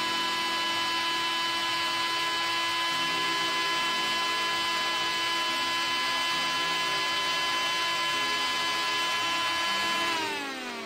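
Electric nail drill with a sanding bit running at a steady high-pitched whine, then winding down with a falling pitch about ten seconds in as it switches off.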